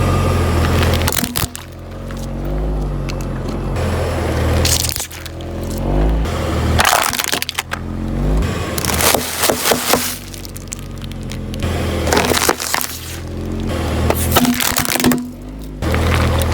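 Car tyres rolling over and crushing crunchy objects: a series of sharp cracks and crunches, several seconds apart, over a low rumble from the car.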